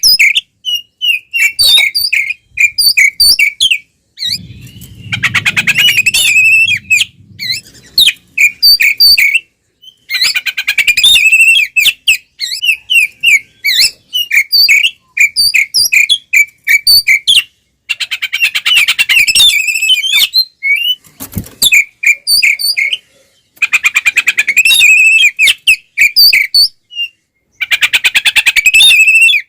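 Oriental magpie-robin (kacer) singing loudly in full fighting song: rapid, varied whistled and chirping phrases broken every few seconds by harsh, buzzy rattles, with short pauses between bouts.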